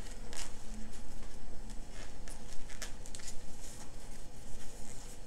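Thick polyester cord rustling and rubbing as a plastic crochet hook is pushed through tight stitches and a loop is pulled through, with soft irregular ticks.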